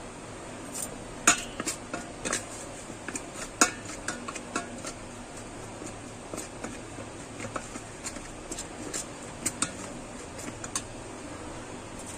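A steel spoon stirring ground spices into a paste in a stainless steel bowl, clinking and scraping against the metal in irregular clicks. The clinks are loudest in the first few seconds and stop near the end.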